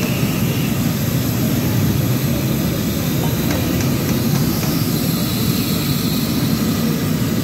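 Potato finger chips deep-frying in hot oil: a steady high sizzle over a continuous low rumbling noise.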